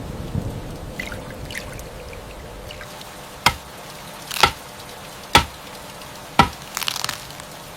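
Rain falling with a steady hiss, and four sharp water drips about a second apart.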